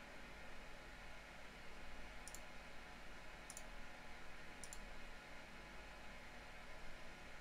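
Three faint computer mouse clicks, a little over a second apart, over a steady low hiss and hum of room noise.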